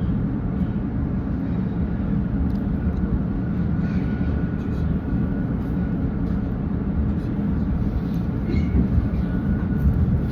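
Passenger train running: a steady low rumble, with faint high-pitched squeals coming and going.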